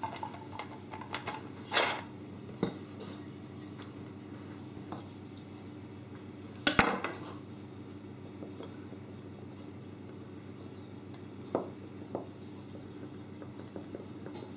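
Kitchen utensils knocking and clattering on a wooden worktop as a small round dish is set down on rolled pastry and a knife is run round it. There are a few scattered knocks, the loudest about halfway through, over a steady low hum.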